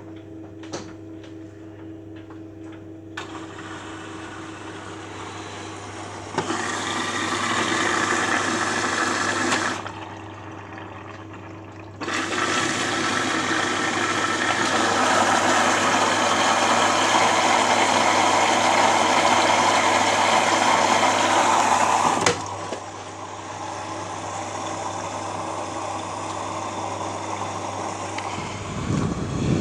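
Beko WMA 1510 W washing machine filling with water, the inlet valve opening twice. A rush of water runs for about three seconds, then after a short pause a second, louder rush runs for about ten seconds before cutting off suddenly. A steady electrical hum sits under both.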